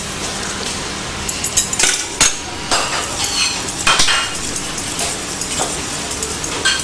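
Wire whisk clinking and scraping against a stainless-steel saucepan in quick, irregular strokes as butter is whisked into a beurre blanc reduction, over a steady background noise.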